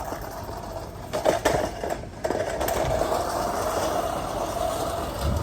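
Suffolk Super Clipper push reel mower being pushed: a few clicks, then a steady whir from the spinning cutting cylinder from about a second and a half in.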